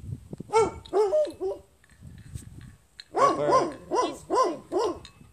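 Chocolate Labrador retriever barking in short, high, yelping barks: four in quick succession in the first second and a half, then a faster run of about five barks, roughly two a second, starting about three seconds in.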